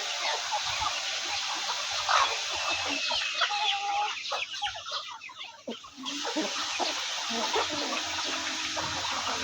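A flock of chickens clucking and calling, many short overlapping calls, briefly quieter around the middle.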